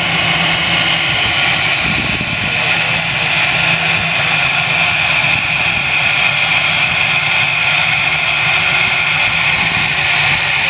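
Airbus A319 jet engines running at taxi power after landing: a steady loud whine over a wide rush of noise, growing a little louder a few seconds in as the airliner turns toward the listener.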